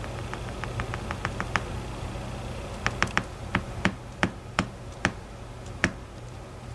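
Small sharp clicks and taps from a DOM IX 10 dimple lock being taken apart and its pins handled: a quick run of light clicks, then about ten louder, irregularly spaced taps.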